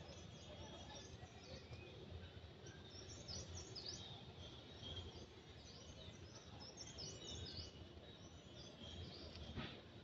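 Faint forest ambience: small birds chirping in many short, high calls, over a low steady rumble.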